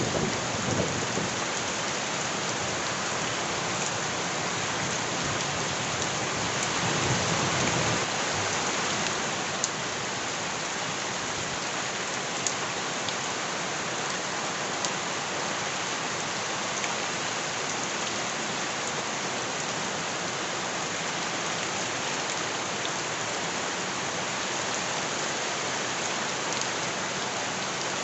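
Steady heavy rain falling on surfaces, with scattered sharp drop clicks and a low, louder swell about a quarter of the way through.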